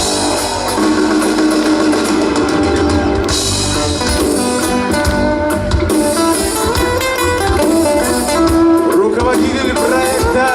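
Live band playing an instrumental passage, with a guitar prominent over bass and drums.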